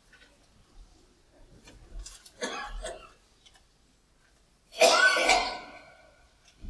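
A person coughing twice, a short cough about two and a half seconds in and a much louder one about five seconds in.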